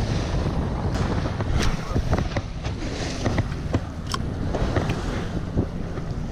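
Wind buffeting the microphone and choppy water splashing around a small boat, with scattered short sharp clicks and knocks.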